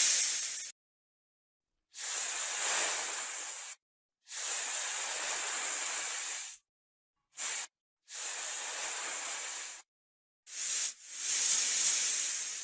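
Snake hissing: a run of separate breathy hisses, each one to two seconds long with short silences between, and one very short hiss near the middle.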